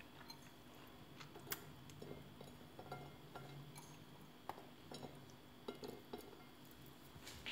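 Faint, scattered small clicks and taps: pomegranate seeds picked from a ceramic bowl by hand and dropped onto a ceramic plate.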